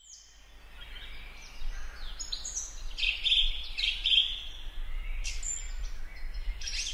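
Small birds chirping and twittering in repeated short calls, fading in from silence over the first second or two, over a low steady rumble.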